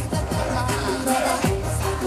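K-pop dance track played loud over concert speakers with a steady beat, and a man singing live into a handheld microphone.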